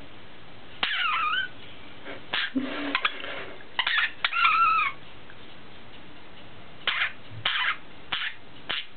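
Budgerigars chirping and chattering in short calls of wavering pitch. The calls bunch up in the first half, the longest lasting about a second near the middle, then give way to a few brief chirps near the end.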